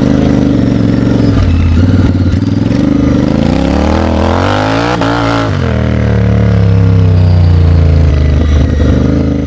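Royal Enfield Continental GT 650 parallel-twin engine under way, its pitch rising as it revs up to a peak about halfway through, then dropping back and running steadily.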